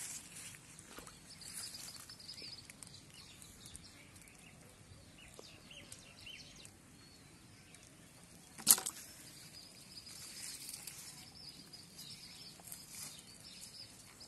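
Quiet outdoor ambience with faint rustling from a fish being unhooked by hand, and a faint high chirping in the background. One sharp click, by far the loudest sound, comes about two-thirds of the way through.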